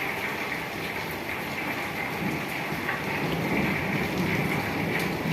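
Steady rain falling, an even hiss with a few faint drop ticks, and a low rumble that grows from about three seconds in.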